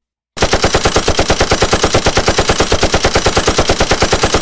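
Machine-gun sound effect: a long burst of rapid, evenly spaced automatic fire that starts about a third of a second in.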